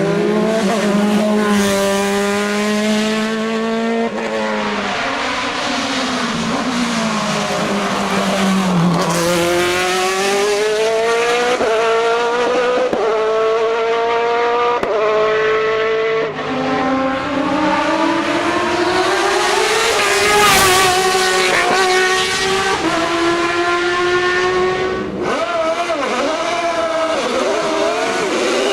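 Race car engine at full throttle accelerating hard, its pitch climbing through each gear and dropping back at every upshift, over and over.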